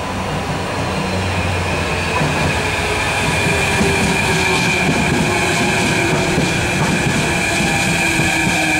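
Mitsubishi-Rotem electric multiple unit rolling into the platform and slowing, growing louder. It gives a high steady squeal and a lower electric whine that falls slowly in pitch as it slows.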